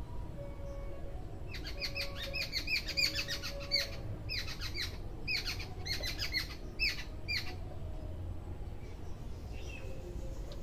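Bird chirping in quick runs of short, falling chirps, starting about a second and a half in and stopping about six seconds later.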